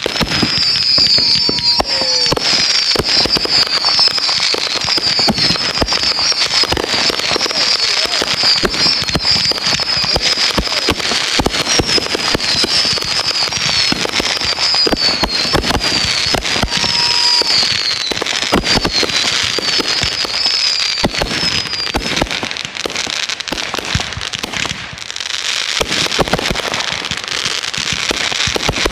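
Fireworks going off continuously: a dense, rapid crackle and popping of firecrackers, with a fast run of short, high falling chirps for most of the first twenty seconds.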